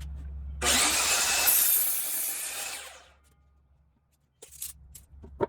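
Power saw cutting through pressure-treated lumber, then dying away about three seconds in. A few short knocks follow near the end.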